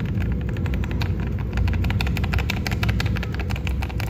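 Typing on a KBD67 Lite mechanical keyboard with Gazzew Boba LT linear switches and JTK keycaps: a fast, steady run of key clacks, quiet and clean, with no rattle and no ring. A steady low rumble runs underneath.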